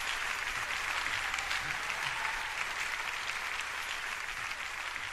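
Concert audience applauding, the clapping slowly dying down.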